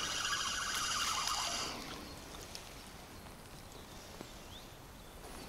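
Feeder spinning reel being wound in, a steady mechanical whirr that stops about a second and a half in, as a small hooked roach is retrieved from distance. A few faint ticks follow.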